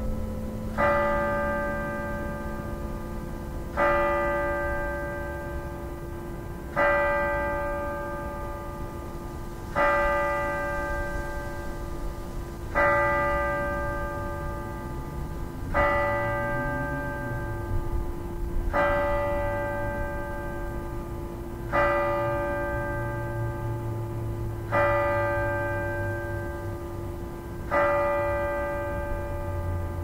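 A large tower bell tolling slowly: struck about once every three seconds, ten strikes at the same pitch, each ringing and fading into the next.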